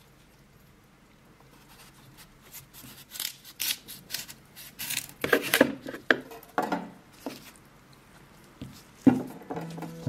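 Kitchen knife slicing through a raw black radish on a bamboo cutting board: a run of crisp cutting strokes, loudest about halfway through, then a single knock near the end.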